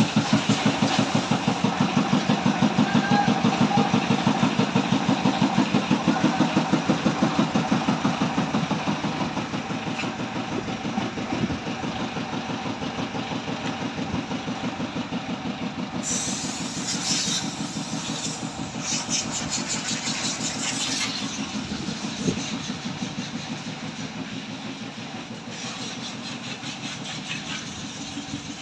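Large diesel coach engine idling with an even rhythmic pulse, growing fainter over the stretch. A hiss comes in for a few seconds past the middle.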